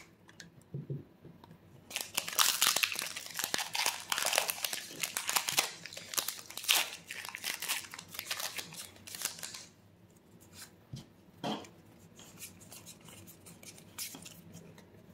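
Foil booster-pack wrapper crinkling and crackling for several seconds while the cards are worked out of it, then a few quieter rustles and clicks as the card stack is handled.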